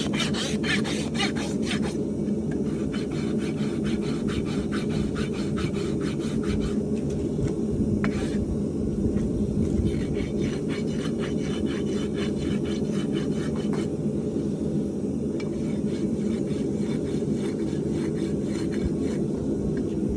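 Farrier's rasp filing a draft horse's hoof in quick, even strokes, in several runs with short breaks, over a steady low rumble.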